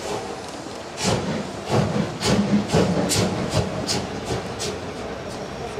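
CFL 5519 steam locomotive moving slowly, chuffing and hissing steam in regular strokes about two a second, starting about a second in.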